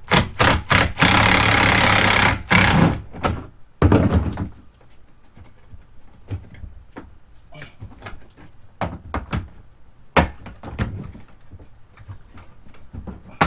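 Clicks and knocks of hand tools working at a stuck thigh-brace T-bolt in a plastic kayak hull; the bolt spins in its well nut instead of unscrewing. A loud rough rushing noise lasts just over a second near the start, with two shorter bursts after it, then scattered light clicks and taps.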